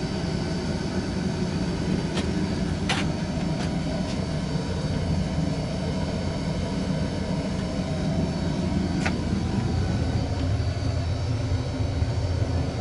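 A steady low mechanical rumble and hum, with a few sharp clicks about two, three and nine seconds in.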